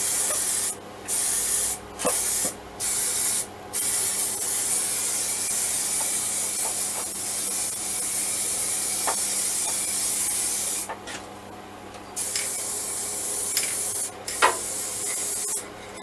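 Aerosol can of spray paint hissing: four short bursts, then a long spray of about seven seconds and, after a short pause, another of about three seconds.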